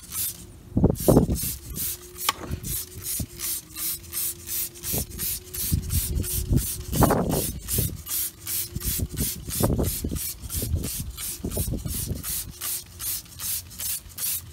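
Wheel cleaner being sprayed onto a car wheel in quick repeated hissing squirts, about three or four a second, with several louder bursts of low rumble over them.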